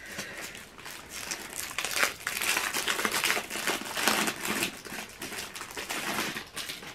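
Crinkling wrapping being handled and pulled from a sketchbook: a dense run of crackles that stops suddenly at the end.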